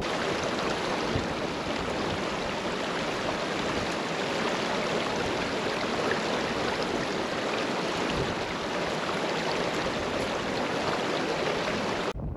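Shallow, rocky hill stream rushing over stones in a steady flow of water. The sound cuts off suddenly near the end.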